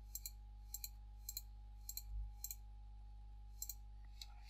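Computer mouse button clicking, about seven faint left-clicks roughly half a second apart with a short pause partway through, each click placing a point of a mask in Blender. A steady low hum underneath.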